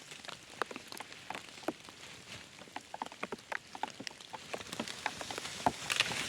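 Rain falling, with many irregular drops tapping over a soft steady hiss, a little heavier near the end.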